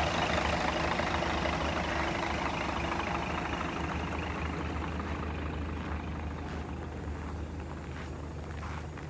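Scania LK420 coach's diesel engine idling steadily, growing gradually fainter.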